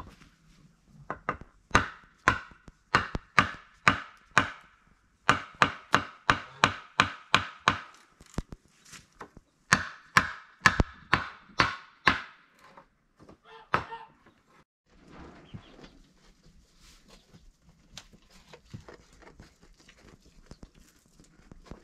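Nails being hammered into a wooden board frame: sharp ringing hammer blows about two a second, in three runs with short pauses between them.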